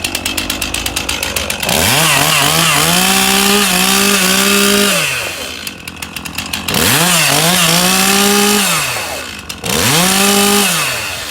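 Two-stroke chainsaw idling, then revved up to full throttle three times, the engine pitch rising, holding high, then falling back to a pulsing idle between revs.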